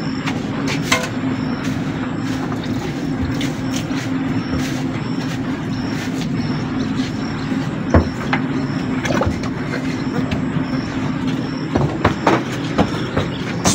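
A motor running steadily with a low, even hum, and scattered light knocks and clicks over it.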